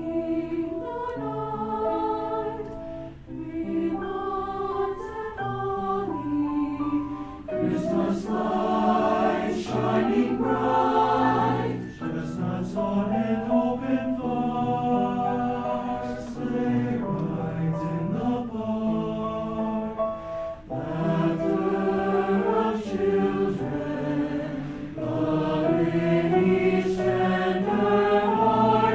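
Mixed high school choir singing a Christmas song in several-part harmony, holding chords that change every second or two.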